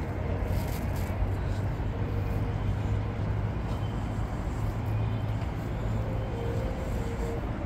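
Steady low rumble of vehicle noise, with no sudden events.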